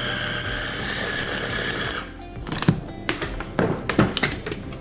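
Ninja blender motor running at speed with a steady high whine as it mixes thick almond-butter batter, cutting off about two seconds in. Then a few hard plastic knocks and clicks as the motor head is lifted off the jar and set down on the counter.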